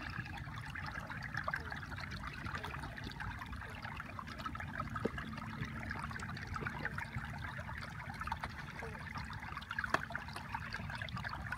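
Water trickling and lapping steadily, with many small clicks and splashes over a low rumble.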